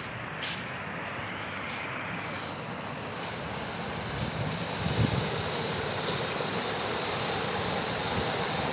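Creek water rushing over rock ledges in small rapids and a low waterfall, a steady noisy rush that grows louder as the microphone moves closer to the white water. A brief low bump comes about five seconds in.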